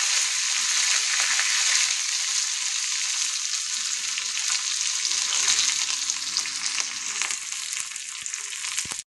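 Sliced shallots and curry leaves sizzling and crackling in hot sunflower oil in a kadai, frying for the tempering of a curry, with a spoon scraping and stirring them. The sizzle eases a little toward the end and cuts off suddenly.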